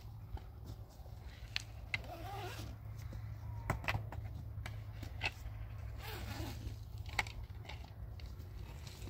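Scattered light knocks and clicks at irregular intervals over a steady low rumble.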